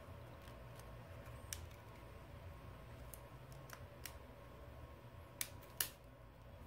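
Faint small plastic clicks and snaps as the clipped-in middle plastic back cover of a Samsung Galaxy S7 Edge is pried loose by hand. A handful of scattered clicks, with two sharper snaps near the end.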